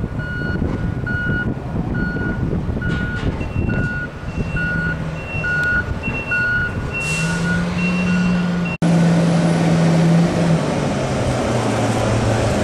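Reversing alarm beeping about twice a second over the engine of a large container-handling forklift, with a second, higher-pitched beeper joining after about three seconds. About nine seconds in, the beeping stops and the engine keeps running with a steady low hum.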